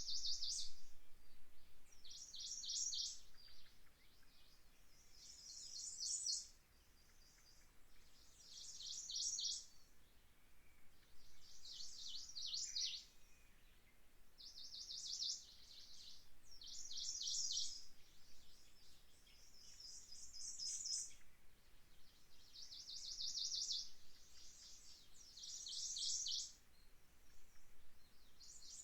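A songbird singing short, high, rapid trilled phrases over and over, one roughly every two to three seconds.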